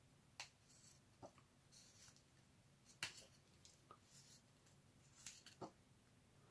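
Faint scraping and small clicks of a sharp X-Acto blade shaving a chamfer into the edge of a polycarbonate tube as it is turned by hand. The clicks come irregularly, the sharpest about three seconds in.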